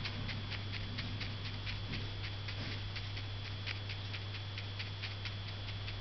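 Ink brush tapping the paper in quick, light strokes, about four taps a second, stopping shortly before the end.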